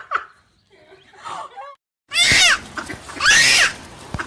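An animal squealing loudly: two high cries about a second apart, each rising and then falling in pitch. They begin after a short gap about two seconds in, with a quieter mix of sounds before the gap.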